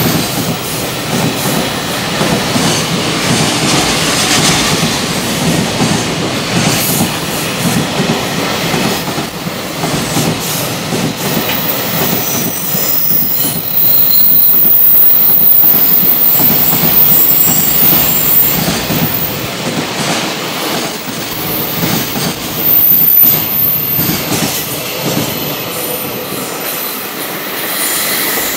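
Container flatcars of a JR Freight container train rolling through a station: a steady rumble and clatter of wheels on rail, with a thin high squeal joining about halfway through. The noise eases off near the end as the last wagons go by.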